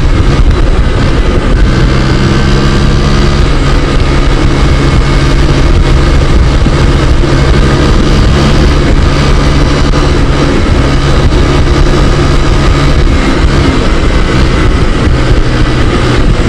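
Motor scooter engine running at steady cruising speed, its pitch shifting slightly now and then, under heavy wind noise on the microphone. The scooter's clogged air cleaner has just been replaced.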